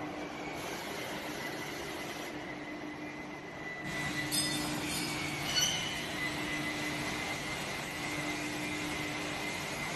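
Steady machinery noise of a metal fabrication workshop: a low hum and a higher whine held throughout, with a few short clicks and clinks around the middle.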